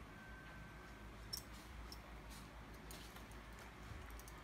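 Faint, sparse clicks and scratches of a utility knife blade cutting through the tape and plastic of a bubble mailer, the loudest click about a second in.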